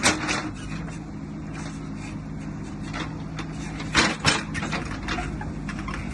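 Steady low motor hum, with a sharp knock at the start and two more close together about four seconds in.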